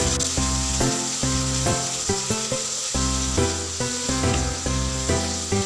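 Ground spice paste sizzling in hot oil in a wok as it is stirred with a spatula, sautéed until it changes colour and turns fragrant. Background music of short, evenly paced notes plays over it.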